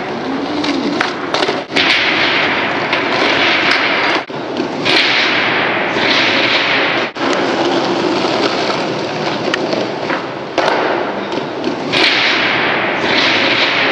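Skateboard wheels rolling hard on rough concrete with a loud grinding rumble, broken by sharp clacks and knocks of the board popping and landing. The sound cuts off and restarts abruptly a few times.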